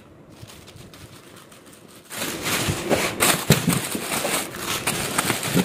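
Plastic wrapping rustling and crinkling as a hand digs among plastic-bagged fishing tackle in a cardboard carton, starting about two seconds in.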